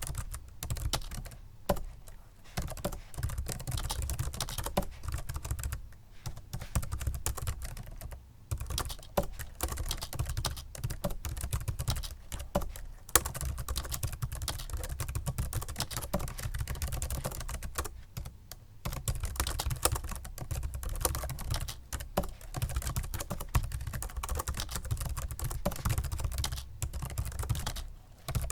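Continuous typing on a Microsoft Sculpt Ergonomic membrane keyboard: rapid, soft key presses in fast runs, broken by brief pauses a few times.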